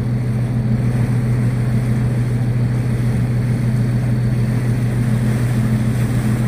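Fishing boat's engine running steadily under way, a constant low hum with a faint wash of water and wind.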